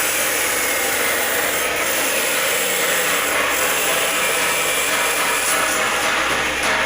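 Steady rushing hiss of steam escaping from a firewood-fired cooking steam boiler, holding even throughout.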